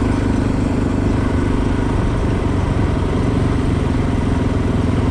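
Motorcycle engine running steadily while riding, its note easing briefly about two seconds in before picking up again.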